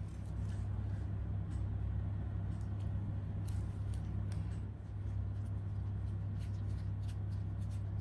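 Faint light clicks and rustling of gloved hands pressing a metal cookie cutter into a slab of chicken mince on a metal baking pan, over a steady low hum.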